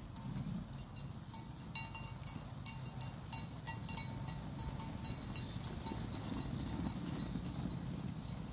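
A flock of sheep walking on a dry dirt track: many light hoof clicks, thickest in the first half, over a steady low rumble, with a few faint ringing tones.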